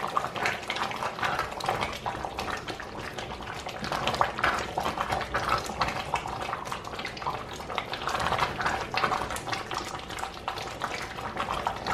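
Thick okra stew simmering in a stainless steel pot, with many small irregular bubbling pops, while a spoon stirs it.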